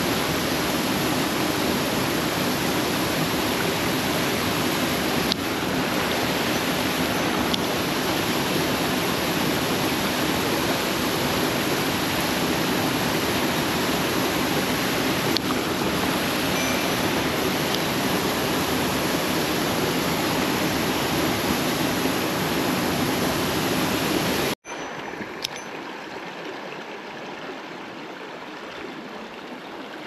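Mountain stream water rushing steadily over rocks. About 24 seconds in it cuts off abruptly and gives way to a quieter rush of water.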